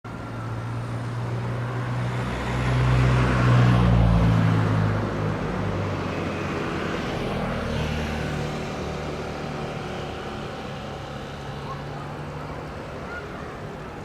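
Jet engines of an Airbus A380 on its landing pass, a loud rumble with a low drone that swells to a peak about four seconds in and then slowly fades as the aircraft moves away.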